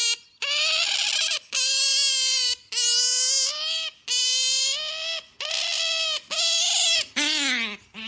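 An otter squealing: a run of about eight loud, high-pitched calls, each under a second long with short breaks between, and a lower falling call near the end.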